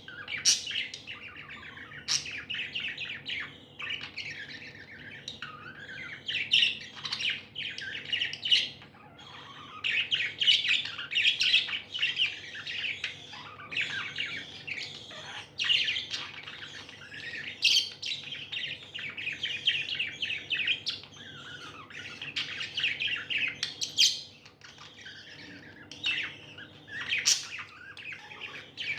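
Pet budgerigars chirping and chattering nonstop, several birds at once, with a few sharper, louder calls standing out now and then.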